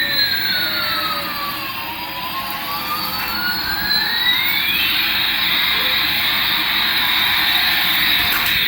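Electronic toy sound effect from a small speaker: a steady jet-like hiss with two synthetic tones gliding apart, one up and one down, then back together about five seconds in, the swoop starting over near the end.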